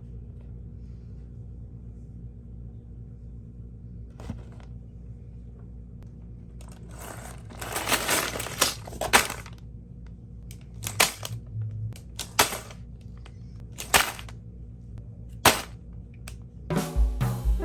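Handling of LEGO bricks and parts bags: a string of short rattling and rustling bursts over a steady low hum, with a cluster about halfway through. Music with drums and piano starts near the end.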